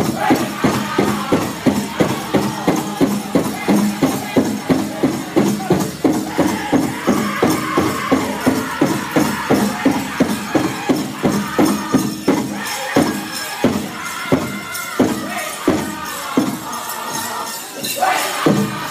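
Powwow drum group singing a chicken dance song over a big drum struck at a steady pulse of about three beats a second, with the jingle of dancers' leg bells. About twelve seconds in, the drumbeat thins to scattered, irregular strokes.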